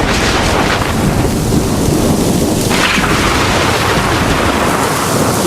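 Heavy rain pouring in a thunderstorm, with thunder. A louder surge comes about three seconds in.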